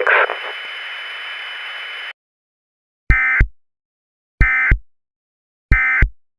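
Radio static hiss that cuts off abruptly, followed by three short, identical bursts of EAS SAME digital data tones about 1.3 s apart: the end-of-message signal that closes an Emergency Alert System broadcast.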